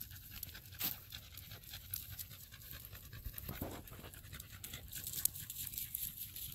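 A dog panting in quick, short breaths after long exertion.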